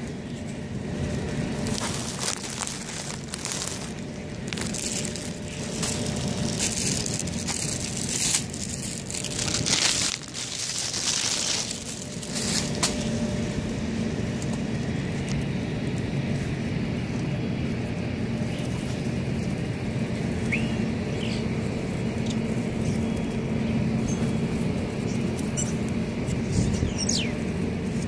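A flock of dark birds flapping and taking off, with a flurry of wingbeats through the first half and a few short chirps near the end, over a steady low rumble.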